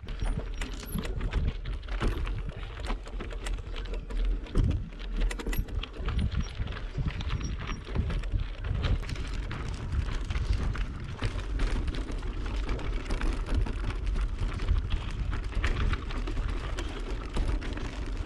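Bicycle tyres crunching over a loose, rocky dirt track, with a constant crackle of small stones and the bike rattling, and a low rumble of wind on the microphone.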